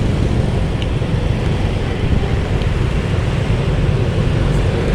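Steady low rumble of road traffic and vehicle engines, with no horn sounding.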